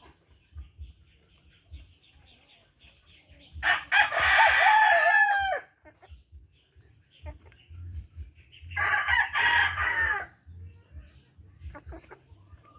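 A rooster crowing twice, each crow about two seconds long, with soft hen clucking in the quieter stretches.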